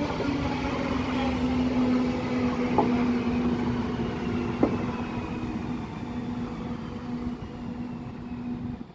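Train running on the rails, with a steady hum and a faint high whine that slowly falls in pitch. A few single clicks come through, and the sound grows gradually quieter.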